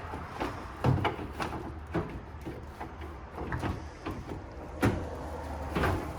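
Irregular knocks and clicks of a car headlight assembly being handled and fitted back into place, the loudest about a second in and again near five seconds.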